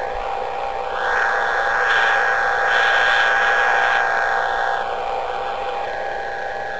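Radio receiver hiss, presented as Jupiter's radio emission, swelling louder about a second in and easing back near the end, with faint steady tones running through it.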